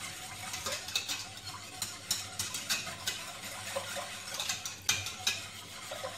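Wire whisk stirring sugar and water in a stainless steel pot, its wires scraping and clicking irregularly against the metal.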